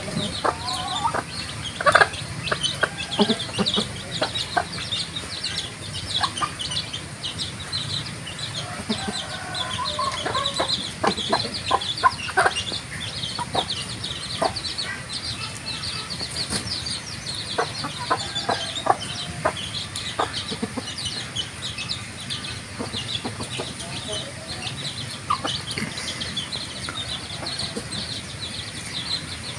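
Chickens clucking in short, scattered calls, over a constant chatter of high, quick chirps.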